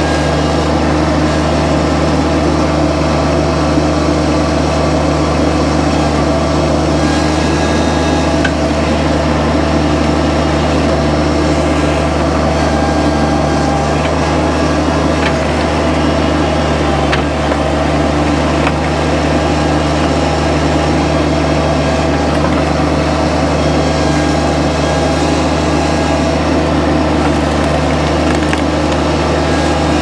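Bobcat MT100 mini skid steer's engine running steadily while it powers a hydraulic log splitter, with red oak cracking and splitting under the wedge and a few sharp clicks.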